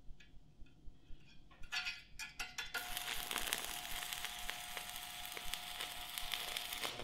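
Stick welding arc: the electrode is struck with a few short crackles about two seconds in, then the arc runs with a steady frying crackle as a bead is laid, cutting off suddenly at the end.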